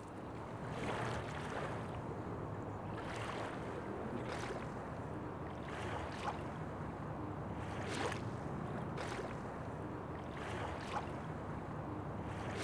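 Water lapping in small waves, with a soft splash every second or two over a steady wash.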